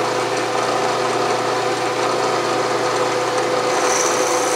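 Vertical milling machine running with an end mill cutting a 3/8 in slot in an aluminium block: a steady machine hum, with a thin high squeal near the end.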